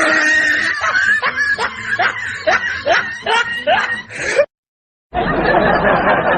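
Sound-effect clip of a person snickering: a run of short rising giggles, about three a second, for over four seconds. It cuts off abruptly to a moment of silence, then a different clip starts with a dense, steady hubbub.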